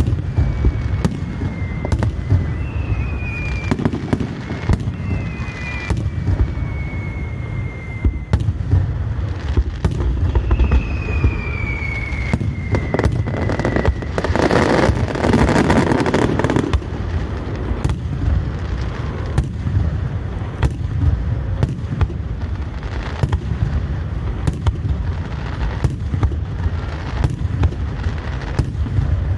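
Aerial fireworks bursting in quick, continuous succession over a steady low rumble. Several high whistles fall in pitch during the first half, and a dense burst of crackling comes about fifteen seconds in.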